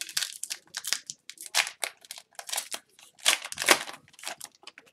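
Foil wrapper of a 2021-22 Upper Deck Artifacts hockey card pack being torn open and crinkled by hand, in a run of irregular crackles and rustles, loudest about three and a half seconds in.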